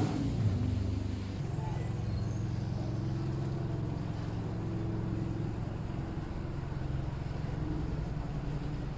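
An engine running steadily nearby, a low even hum, slightly louder for the first second or so.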